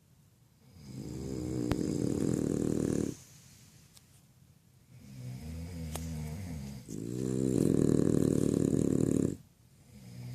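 A sleeping French bulldog snoring: two long, loud rattling snores of about two and a half seconds each, with a softer, more even-toned snoring breath between them and another beginning near the end. The snoring is typical of the breed's short, flat-faced airway.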